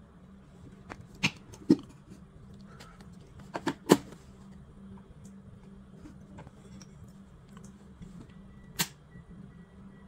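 Handling noises as a bare power-supply circuit board is turned over and set down and a mains plug is pushed into a power strip: a few sharp clicks and knocks, the loudest a cluster about four seconds in and another near the end, over a steady low hum.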